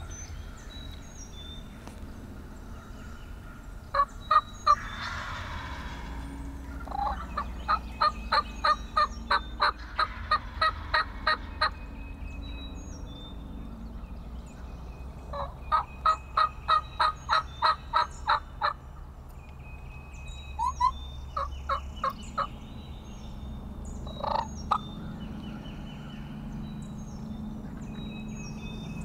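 Wild turkeys calling: loud runs of repeated notes, about three a second, each run lasting several seconds, with a few shorter bursts between. Small songbirds chirp faintly in the background.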